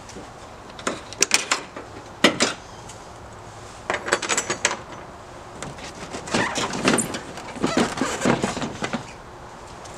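Hard plastic clicking, rattling and scraping in five short bursts as hands work a headlight assembly loose from a 1999–2004 Ford Mustang's front end.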